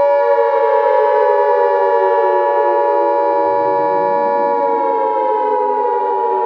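Emergency Alert System-style alert: a loud, steady two-tone attention signal held under a siren-like tone that slowly falls in pitch.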